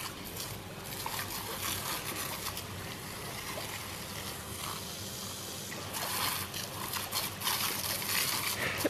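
A thin jet of water spraying with a steady hiss and spatter as it hits the grass and a dog snapping at it, the spatter getting busier in the last few seconds.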